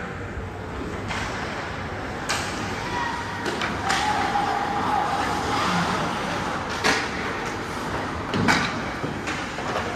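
Ice hockey play: four sharp cracks of sticks and puck, the loudest two in the second half, over steady rink noise.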